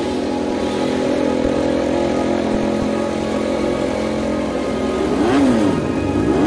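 KTM RC16 MotoGP bike's V4 engine running at a steady idle, then blipped on the throttle a couple of times near the end, the pitch rising and falling quickly.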